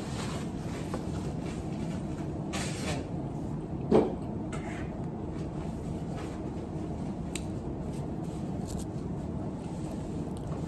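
Steady low background room noise, with a paper napkin rustling near the start and faint clicks of eating at a table, and one short dull thump about four seconds in.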